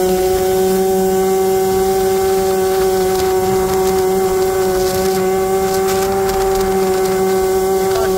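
Yamaha Aerox's tuned Minarelli horizontal liquid-cooled two-stroke single (70 cc Metrakit cylinder, Jollymoto exhaust) running at high revs under throttle while riding. It holds a steady, high exhaust wail at one pitch.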